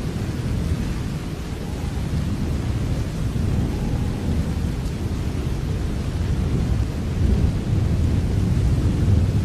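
Steady rain with a deep low rumble of thunder underneath, swelling louder about seven seconds in.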